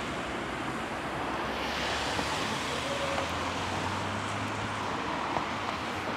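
Road traffic: cars driving past, a steady low engine hum under tyre noise that swells through the middle seconds and eases off near the end.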